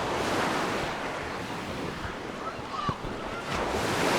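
Mediterranean surf washing on the beach, swelling and easing, with wind on the microphone. A short sharp knock about three seconds in.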